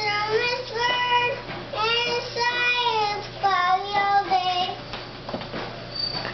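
A young child singing in a high sing-song voice, a run of held, wavering notes that stops a little under five seconds in.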